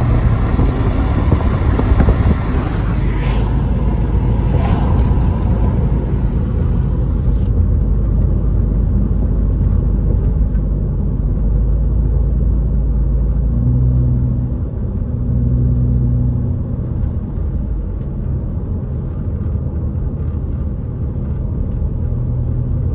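Road noise heard inside a moving car's cabin: a steady low rumble of engine and tyres on wet pavement. A higher hiss over it drops away suddenly about seven and a half seconds in, leaving the low rumble.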